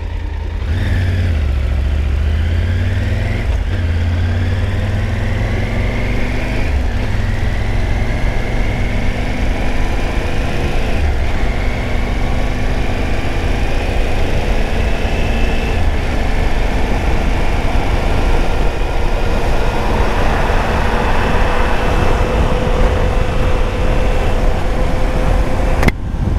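Triumph Tiger 900's three-cylinder engine running on the move, its pitch rising in long, slow sweeps and dropping back between them as the bike pulls through the gears, over a steady low rumble and wind rush.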